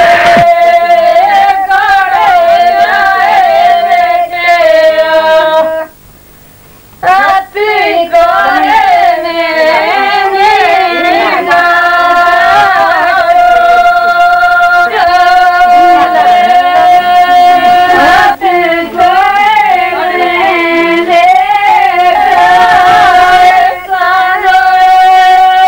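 Women's voices singing a melody in long held notes with wavering phrases between them; the singing cuts out for about a second roughly six seconds in.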